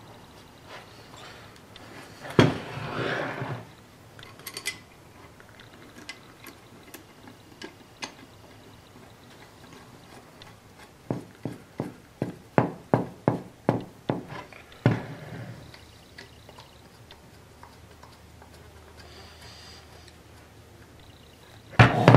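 Metal parts of a Hercus lathe's cross-slide and feed-screw bracket being handled and fitted: a knock with a short scrape about two seconds in, a run of about ten sharp clicks at two or three a second later on, and more knocks near the end.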